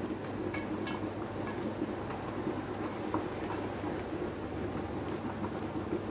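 Cherry jam at a rolling boil in an enamel pot, a steady bubbling with a low hum under it. A metal spoon skimming the foam gives a few light clicks in the first couple of seconds.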